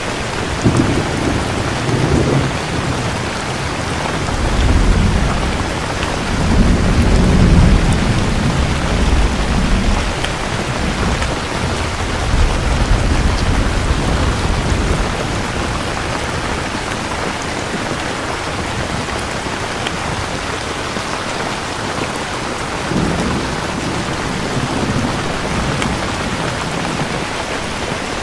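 Steady heavy rain hissing, with rolling thunder rumbling through the first ten seconds, loudest about seven seconds in, and a fainter roll of thunder again near the end.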